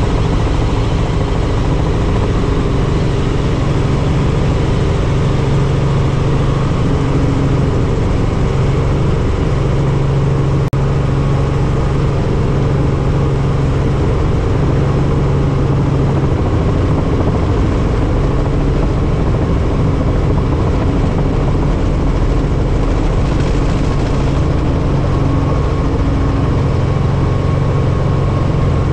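Helicopter's engine and rotor running: a loud, even drone with a steady low hum.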